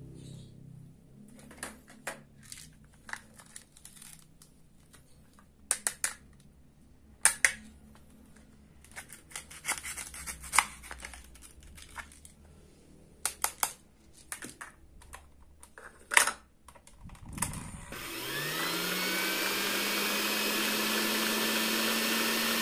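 Hard plastic toy pieces clicking and tapping as they are handled, then about three-quarters of the way in the small battery motor of a toy stand mixer switches on, its whine rising in pitch as it spins up and then running steadily.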